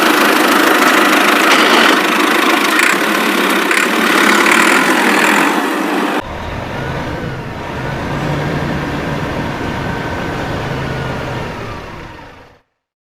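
Two vehicle engine sound clips, one after the other: a loud, noisy engine sound that cuts off abruptly about six seconds in, then a lower, steadier engine running that fades out near the end.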